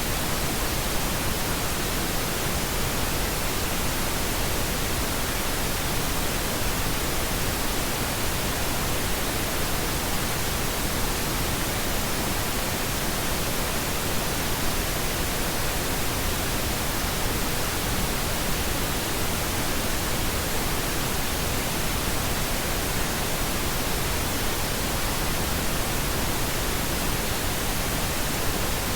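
Steady pink noise: an even, unchanging hiss spread across the whole frequency range, with no events or variation.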